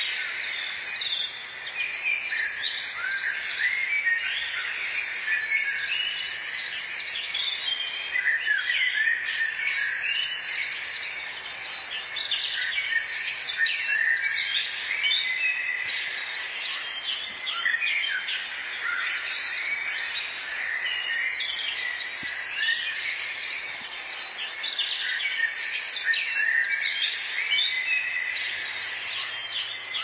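A forest chorus of many songbirds singing and chirping at once, with their calls overlapping continuously.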